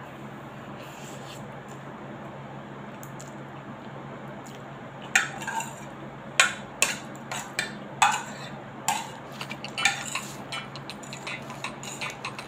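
Metal fork scraping and clinking against a ceramic plate while scooping up the last noodles: a run of irregular sharp clinks and scrapes starting about five seconds in, over a steady low hum.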